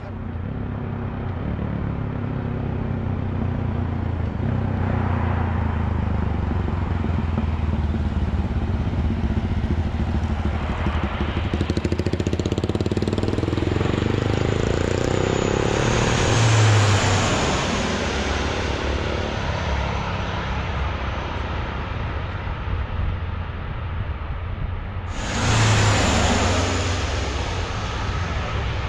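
Engine noise, a steady low drone with a rushing hiss, swelling loudly about halfway through and again, suddenly, near the end.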